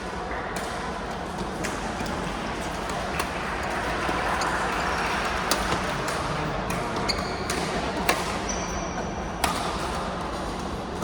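Basketball game in a gym: a ball bouncing, with scattered sharp thuds and a few short high squeaks over a steady background din.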